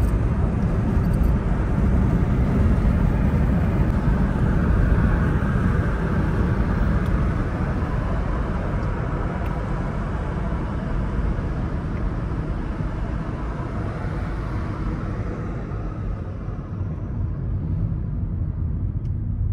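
Steady road and engine noise inside a car's cabin while driving, growing quieter and duller near the end.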